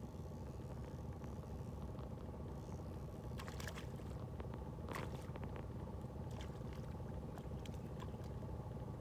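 Boat motor idling with a steady low hum, and a few sharp clicks and knocks, most of them between about three and a half and five seconds in, with more a little later.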